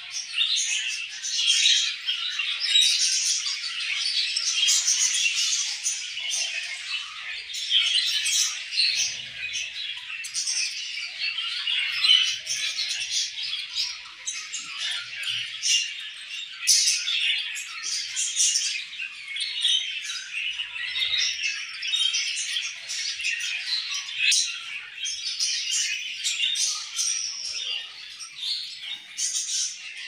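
A colony of budgerigars chirping and chattering continuously, many birds' calls overlapping without a break.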